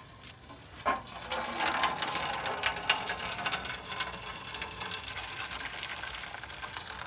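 Starchy cooking water pouring from a pot of boiled rice into a steel bowl as the rice is drained: a steady splashing stream, after a single knock about a second in.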